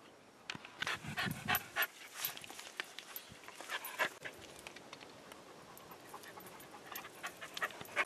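A dog panting close by in short, quick breaths, coming in several bouts.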